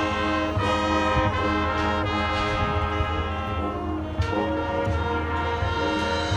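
Marching band's brass section playing sustained chords over a low bass line, moving to new chords about half a second in and again about four seconds in.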